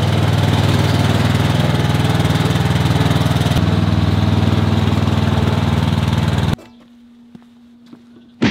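Ride-on lawn tractor's Briggs & Stratton engine running steadily as the mower drives, cutting off suddenly about two-thirds of the way through; a few faint clicks follow, then a brief loud sound near the end.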